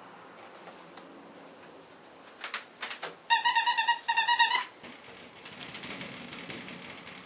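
A squeaky dog toy squeezed twice, giving two high squeaks about three seconds in, the first under a second long and the second shorter. A few faint clicks come just before them.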